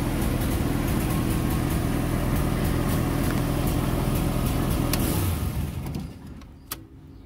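GM Caravan's engine idling steadily, heard from inside the cabin. The sound dies away about five and a half seconds in, and a faint click follows.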